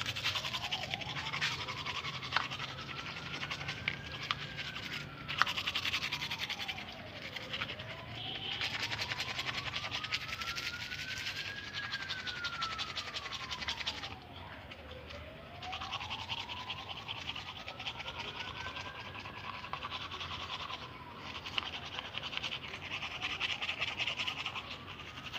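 Toothbrush scrubbing teeth: a rapid, scratchy brushing that comes and goes in spells. Behind it, a faint tone slowly rises and falls about every seven seconds.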